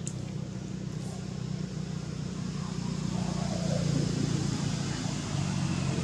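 Steady low hum of a running motor vehicle engine, growing a little louder about three seconds in.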